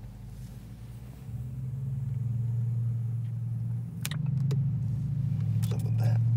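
Car engine running, heard from inside the cabin as a steady low hum that grows louder about a second in and shifts in pitch around four and six seconds in. A few short clicks of handling come over it as the plastic film is peeled off the phone.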